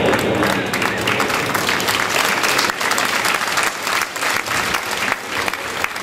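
Audience applauding, the clapping building up over about the first second and then running on densely.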